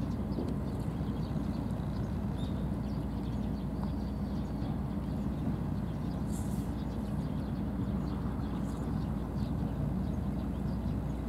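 Steady low outdoor rumble with faint high ticks now and then.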